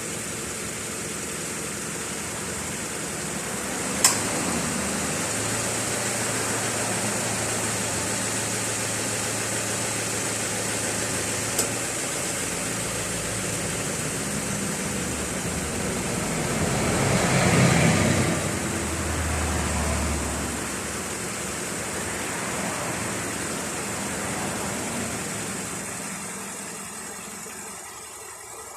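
Subaru Forester 2.0's Valeo DKV-10 vane-type A/C compressor cycling with the engine running: the clutch clicks in about four seconds in, the compressor runs with a steady low drone and cicada-like noise for about eight seconds, then the clutch clicks out. The cicada noise is the sign of a badly worn compressor. A louder swell of sound follows about halfway through the rest.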